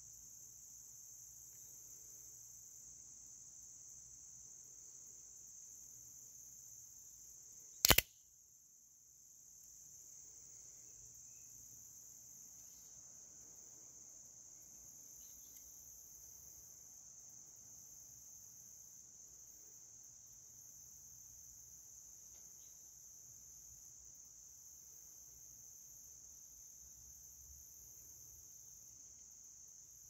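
A large guarded extended-blade switchblade firing open: one sharp metallic snap about eight seconds in as the spring-driven blade swings out and locks. A steady high insect chirring runs underneath.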